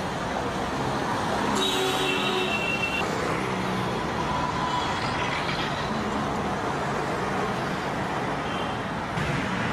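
Steady city street traffic: vehicle engines and road noise, with a short horn sounding about two seconds in.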